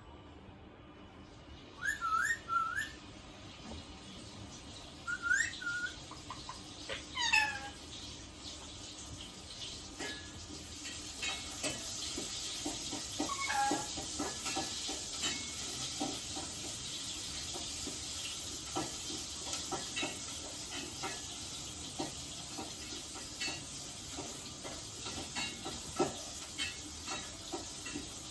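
Indian ringneck parrot giving short whistled calls: three quick rising whistles, then two longer gliding whistles. After about ten seconds they give way to a steady high hiss with scattered clicks.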